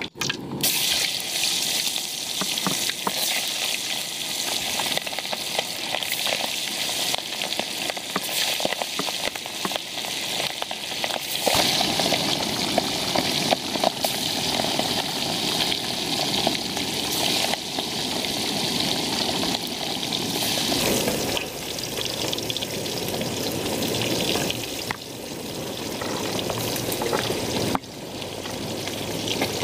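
Pieces of marinated balia fish sizzling and crackling as they fry in hot sunflower oil in a kadai.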